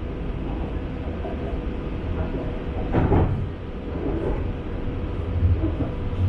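Metro train heard from inside the carriage while running: a steady low rumble, with one brief louder clatter of the wheels about three seconds in.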